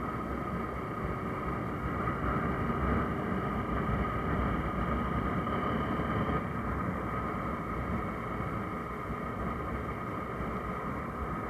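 Motorcycle riding at a steady cruising speed: a continuous engine drone mixed with wind rushing past the rider.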